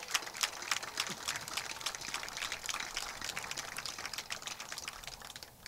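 Applause: many people clapping, a dense patter of hand claps that fades near the end.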